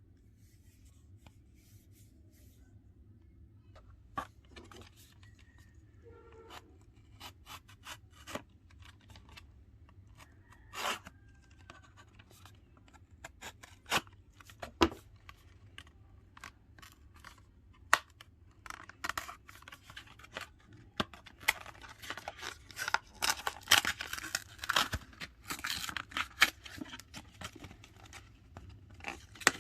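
Plastic packaging being handled and torn open, with scattered sharp clicks and taps at first, then dense crinkling and rustling from about two-thirds of the way in.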